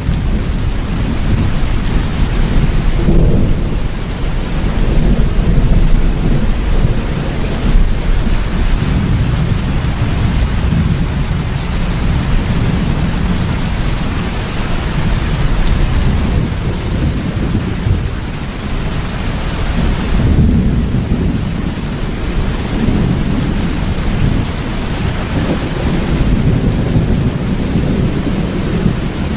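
Heavy rain with thunder rumbling low and continuously underneath, swelling and easing in waves.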